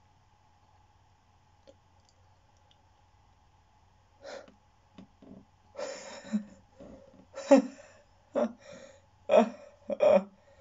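A teenage boy laughing in short bursts, starting about four seconds in.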